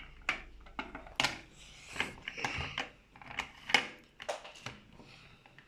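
Hard plastic toy figures and accessories being handled, giving a string of irregular clicks and knocks, about two a second.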